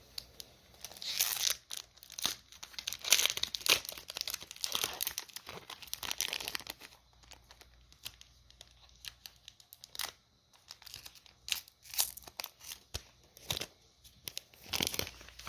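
Foil booster pack wrapper being torn open and crinkled: a dense crackling for several seconds, then scattered crinkles, with another short burst near the end.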